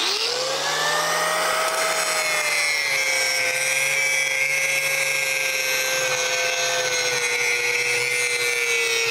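Angle grinder with a 1/4-inch depressed-center aluminum-oxide wheel switched on, its motor whine rising as it spins up about a second in, then grinding down a steel weld bead. A steady harsh grinding hiss runs over the motor's whine, which drops slightly in pitch as the wheel bears on the metal.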